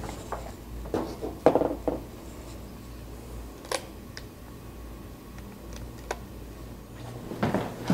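Scattered small clicks and light knocks from a plastic motion sensor being handled and set down on the top of an old piano. A sharper knock comes about a second and a half in, and another near four seconds.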